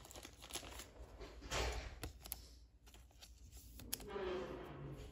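Pokémon trading cards being handled: soft rustling of card stock with a few light clicks as a card is slid between the fingers.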